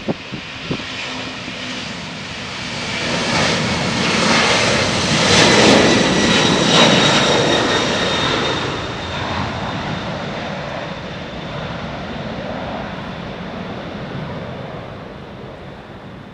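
Twin jet engines of a Boeing 767-300ER at takeoff thrust as the airliner rolls past and lifts off. The noise builds to its loudest about five to seven seconds in, with a high whine over it, then fades steadily as the aircraft climbs away.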